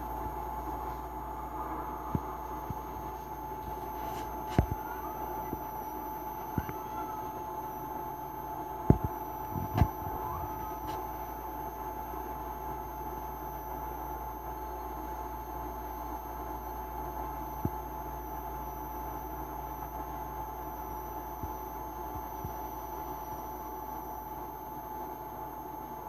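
Steady background hum with a faint steady whine, broken by a few short sharp clicks, the loudest two about nine and ten seconds in.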